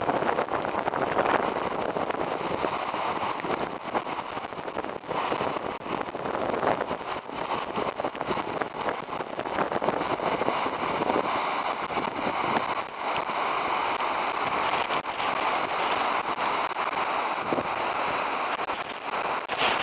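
Post-wildfire debris flow of mud, water and debris rushing down a creek channel: a steady, dense rushing noise with frequent small crackles and knocks through it.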